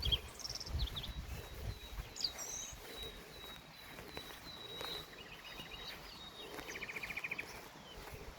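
Several small songbirds chirping, with two rapid trills in the second half, over a thin steady high tone held for about four seconds. Low rumbling in the first two seconds.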